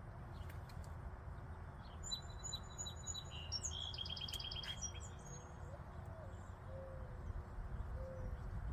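A small songbird singing one phrase of high, clear notes that runs into a fast trill, about two to five seconds in. Faint short low notes repeat a few times after it.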